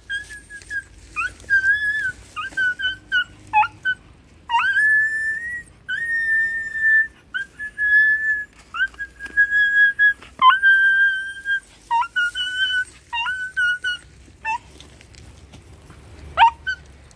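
A stray puppy stuck in thick mud whining in distress: a quick run of high-pitched cries, each rising sharply and then held, repeated more than a dozen times, with one last cry near the end.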